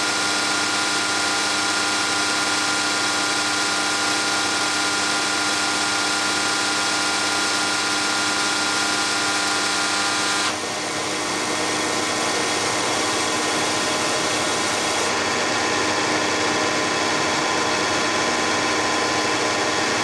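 Bacharach diesel injection pump test stand running a VE rotary injection pump, a steady mechanical hum with a whine. About halfway through the sound changes abruptly to a rougher running note.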